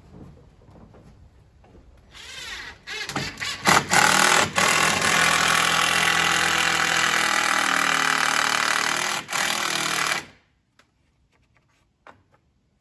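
Cordless impact driver driving a long screw into a wood framing board: a few short bursts about two seconds in, then a long steady hammering run that stops abruptly about ten seconds in.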